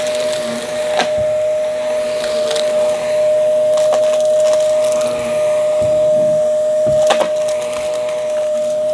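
Vacuum cleaner running with a steady whine while it sucks up crunchy debris that crackles through it, with sharper cracks about a second, four seconds and seven seconds in.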